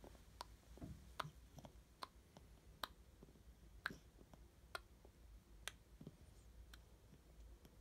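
Near silence broken by faint, sharp clicks about once a second.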